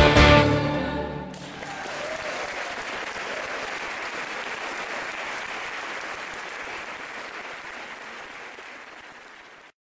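A live band ends the song on its final chord, and about a second in audience applause takes over. The applause slowly fades and cuts off abruptly just before the end.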